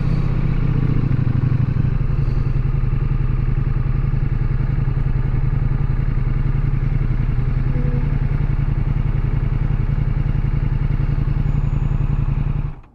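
Ducati Multistrada V4S's V4 engine running steadily at low revs, near idle, as the motorcycle rolls slowly and comes to a stop. The sound cuts off suddenly near the end.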